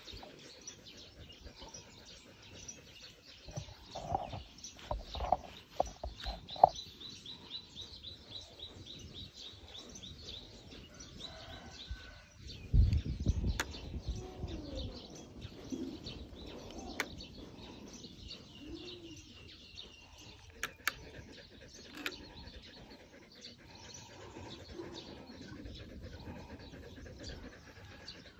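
Birds chirping in the background, with a quick run of high chirps a few seconds in. Close handling noises sound over them: a loud rustle about halfway through, then a few sharp clicks.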